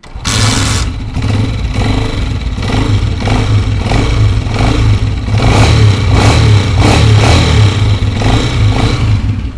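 Honda CG125 single-cylinder four-stroke engine running and being revved, just after a screwdriver adjustment meant to quiet a noise from inside the engine. It starts suddenly and gets a little louder in the second half.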